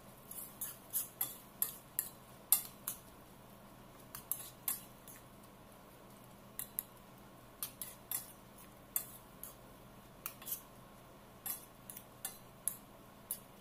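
Metal spoon clinking and scraping against a stainless steel frying pan while stirring a vegetable stir-fry: a string of short, irregular clicks, often in pairs.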